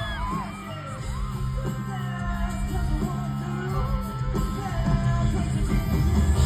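Live rock band playing through a hall PA, with singing and some yells over steady bass and guitar.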